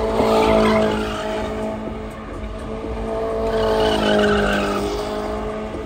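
Car drifting: engine held at high revs while the tyres squeal. It swells loud twice, about a second in and again around four seconds in.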